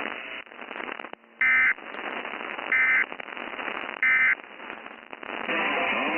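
Emergency Alert System end-of-message data tones received over the radio: three short, loud bursts of digital tones about a second apart, marking the end of the alert, with radio static in between. Music starts up near the end.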